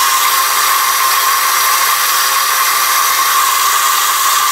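Stand mixer's food-processor attachment running at high speed, blending cooked chicken liver into a smooth pâté: a steady, high-pitched motor whine.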